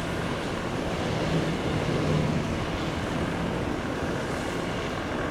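Steady rumble of jet airliner engines at an airport, mixed with wind noise on the microphone.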